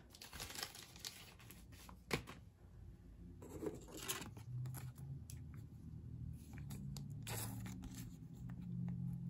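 Trading cards and a clear plastic card sleeve being handled: soft rustling of plastic with scattered short clicks, the sharpest about two seconds in, as a card is worked into the sleeve.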